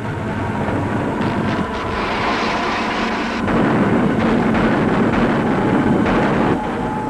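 Sound of an air attack on ships: a dense, continuous rumble of explosions and gunfire with a steady whine in the first half. It gets louder about halfway through as bombs burst around the ships, and eases slightly near the end.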